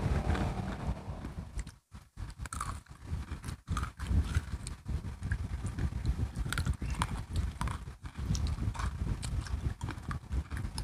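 Close-miked crunching and chewing of crisp biscuit sticks, with irregular sharp crunches over a low mouth rumble.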